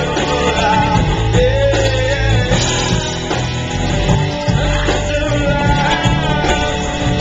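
Rock music with a singer and guitar, picked up by a small camcorder's microphone at lower quality.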